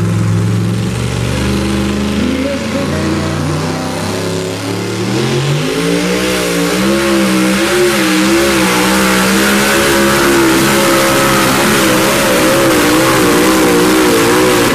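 Pulling truck's supercharged engine revving up from the line and running at high rpm under load while dragging the weight sled. Its pitch climbs over the first several seconds, then wavers up and down for the rest of the pull.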